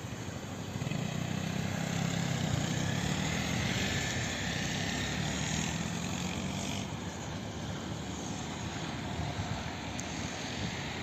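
Race convoy cars driving past on the asphalt road: engine and tyre noise that swells to its loudest a few seconds in, then eases off.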